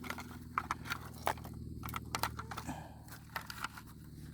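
Footsteps crunching and crackling through thick, dry weeds and brush: irregular snaps and rustles, with a low steady hum underneath.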